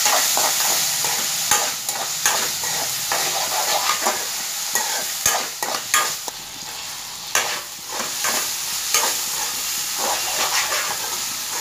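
Mixed vegetables frying in oil in a metal kadai, a steady sizzle, while a metal ladle stirs and tosses them, scraping and clinking against the pan many times. The vegetables are being fried with vinegar, tomato ketchup and soy sauce just stirred in.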